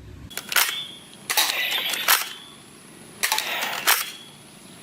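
Toy Nerf blaster being worked and fired: a couple of sharp plastic clicks, then two bursts of mechanical rattling, each just under a second long and opened and closed by a click.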